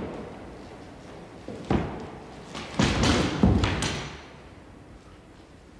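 Heavy thuds on a wooden floor: one sharp thud about a second and a half in, then a longer cluster of heavy thuds around three seconds in as a person falls and lands on the floor.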